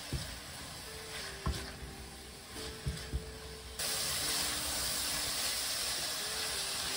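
Diced courgettes sizzling in oil in a steel pan, with a few short knocks of the spatula against the pan as they are stirred. About four seconds in, the sizzle turns abruptly louder and steady.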